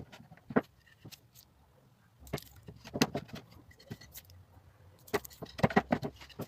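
Sharp wooden knocks and clatter of pallet-wood slats being handled and set in place, coming in short clusters.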